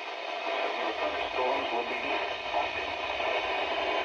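Emergency weather-alert radio broadcast through a small radio speaker: an indistinct voice over steady hiss.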